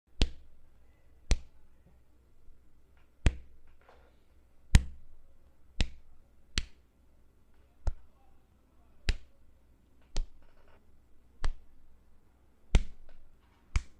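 Punch sound effects: about a dozen sharp hits, one every second or so, each with a short decay, over a faint low hum.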